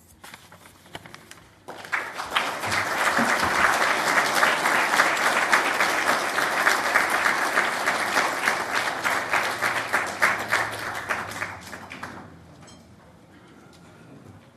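Large audience applauding in a hall. A few scattered claps swell about two seconds in into dense, steady clapping, which dies away about twelve seconds in.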